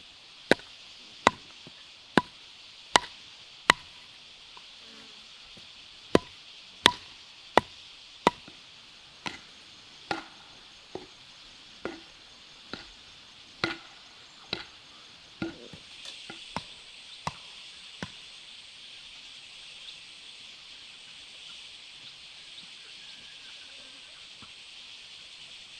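Steady series of sharp strikes from a hand tool on wood or bamboo, each with a short metallic ring, about one stroke every 0.8 seconds with a couple of short pauses, stopping about 18 seconds in. A steady high drone of insects runs behind.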